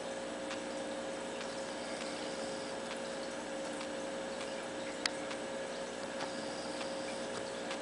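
Steady mechanical hum and hiss with a constant tone, with faint irregular ticks and one sharper click about five seconds in.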